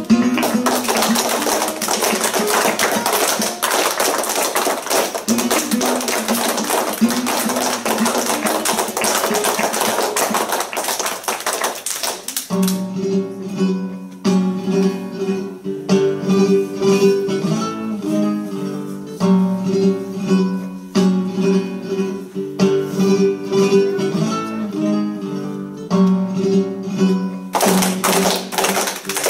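Flamenco guitar music: a dense, busy strummed passage for the first dozen seconds, then slower separate plucked notes with short pauses, and dense playing again near the end.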